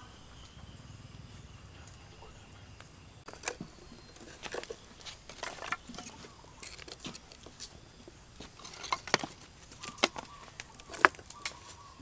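Small kindling fire catching inside a clay stove: sparse, irregular sharp crackles and snaps of burning sticks, coming more often near the end.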